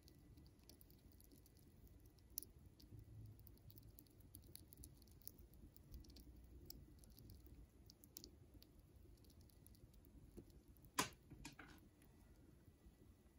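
Siberian chipmunk gnawing a pistachio, its teeth making faint, irregular crunchy clicks on the nut. One sharper click about eleven seconds in, followed by two smaller ones.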